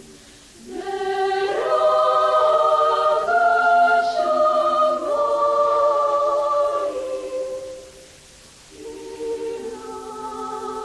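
Choir singing unaccompanied in sustained chords. A phrase swells in about a second in and fades away near eight seconds, then a new phrase begins.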